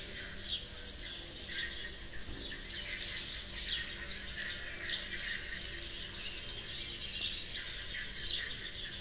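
Small birds chirping, many short calls sweeping down in pitch, one after another, over a faint steady low hum.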